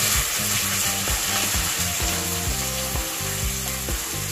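Chopped onion, bell pepper, scallion and tomato sizzling in hot olive oil as a wooden spoon stirs them in an aluminium pot. Background music with an even beat plays underneath.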